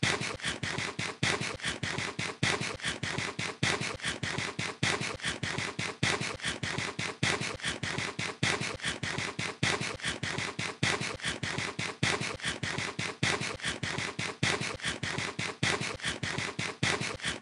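Corn on the cob being bitten and chewed fast, close to the microphone: a steady, even run of crunches, several a second.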